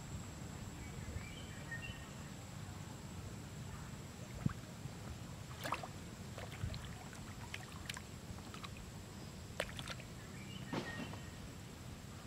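Water splashing and sloshing as two long-tailed macaques wrestle in shallow muddy water: several short splashes from about four seconds in, over a steady low rumble.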